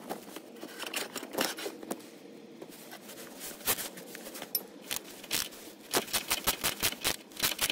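Hand ratchet on a 17 mm socket clicking in quick strokes as a rear suspension bolt is turned, about five or six clicks a second from about two-thirds of the way in. Before that, scattered clinks and scrapes of metal tools.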